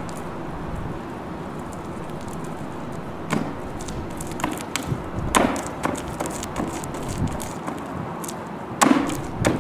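Ballet slippers stepping and shifting in a thick layer of drywall mud and acrylic paint on a plywood platform. Irregular knocks and smacks start about three seconds in, loudest about halfway through and again near the end, over a steady outdoor background noise.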